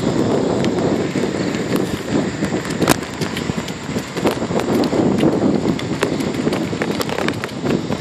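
Wind buffeting a smartphone microphone on a moving bicycle's handlebars, a steady rumble, with scattered clicks and knocks from the bike riding over the paved path, one louder about three seconds in.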